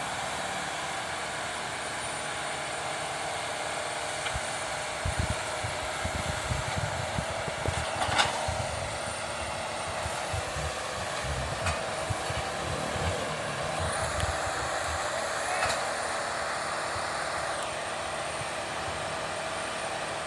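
Excavator's diesel engine running steadily with a high whine over it, with irregular low rumbling and a few sharp metallic clanks from about five to sixteen seconds in as the machine works.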